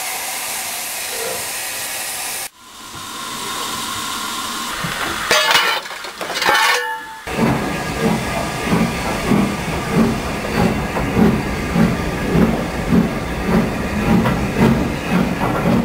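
Steam locomotive 30926 hissing steam at the platform. The hiss cuts off sharply about two and a half seconds in, then builds again, with brief shrill tones around six seconds in. From about seven seconds in comes the steady rhythmic beat of the train under way, about two beats a second.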